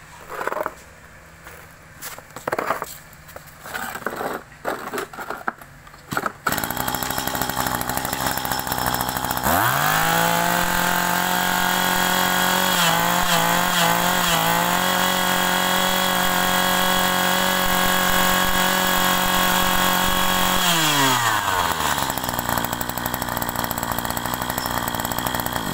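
Maruyama 20cc two-stroke brush cutter engine catching after a few short sounds and idling. It is then opened to full throttle for about ten seconds, with a brief wobble in pitch partway through, before dropping back to idle.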